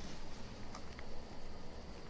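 Faint light ticks and scraping from a plastic knife working old glue off a phone's LCD glass, over a low steady hum.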